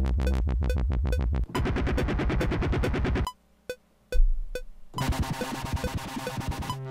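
Dubstep wobble-bass and synth samples from the WobbleBOSS sampler's 'Secret Weapons' kit, triggered one after another from a MIDI keyboard. A deep sub-bass gives way to a fast buzzing wobble that stops about three seconds in, then a short sub-bass hit, then another rhythmic synth pattern. A metronome clicks evenly at 140 BPM underneath.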